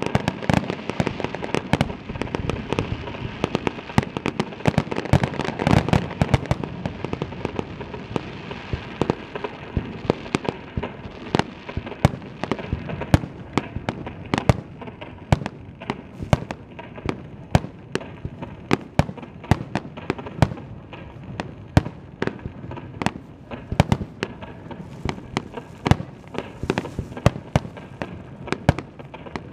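Star mine fireworks barrage: aerial shells fired in rapid succession, with a dense, continuous string of sharp bangs, several a second, over a constant crackle and rumble.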